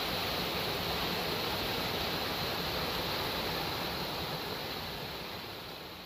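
Small waterfall: a steady rush of falling water, slowly fading out over the last couple of seconds.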